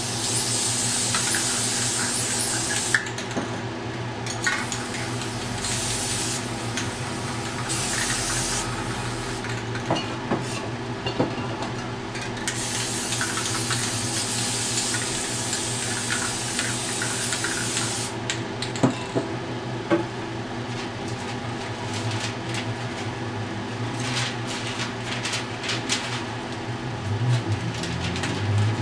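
Aerosol spray paint cans hissing in four bursts, the longest about five seconds, the first three in quick succession. After that, scattered sharp clicks and knocks of cans and paper being handled, all over a steady low hum.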